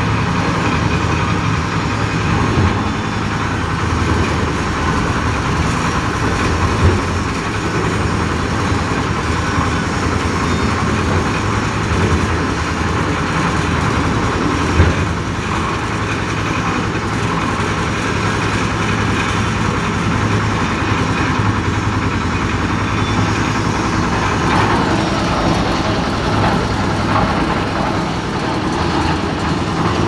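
Concrete mixer with lift running on test: its engine runs steadily with a low hum, and two brief knocks sound, about seven seconds and about fifteen seconds in.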